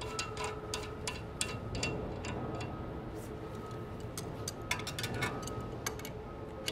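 Hand wrench on a steel jam nut and threaded rod of a conveyor precleaner's spring tensioner, giving light, irregular metallic clicks as the nut is tightened: a run of clicks, a pause, then another run about five seconds in. A faint steady hum sits underneath.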